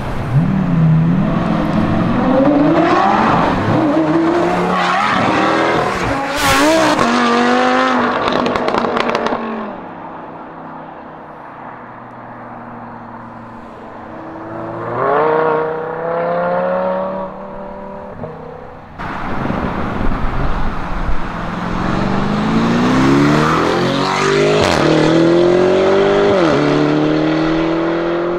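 Lamborghini engines accelerating hard in three short clips: first a Gallardo's V10 pulling away with revs climbing and dropping back at several quick upshifts, then a Huracán's V10 running low and steady before revving up and pulling away, then a Urus's twin-turbo V8 accelerating through a shift.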